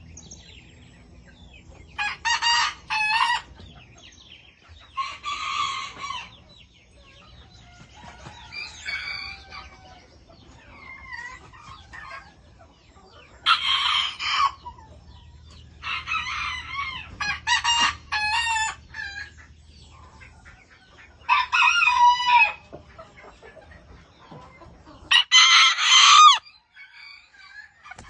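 Serama bantam chickens crowing: seven short crows, each about a second long, every three to four seconds, with the last one the loudest.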